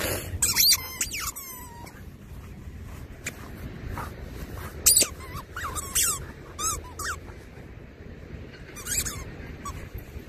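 A labradoodle whining in short, high, squeaky glides several times while digging, with short bursts of its paws scraping through sandy soil.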